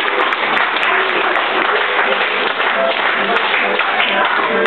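An audience clapping and applauding steadily over playing music, with some voices mixed in.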